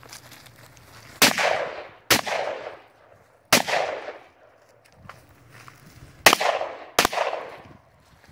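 Five gunshots: two about a second apart, a third about a second and a half later, then after a pause of nearly three seconds a last pair under a second apart. Each shot rings out with a long echoing tail.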